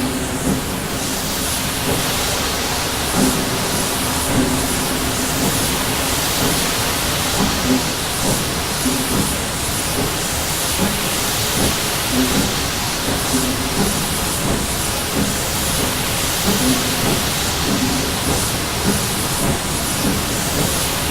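BR Standard Class 7 'Britannia' two-cylinder steam locomotive pulling away from a station: a string of exhaust beats from the chimney over a steady hiss of steam.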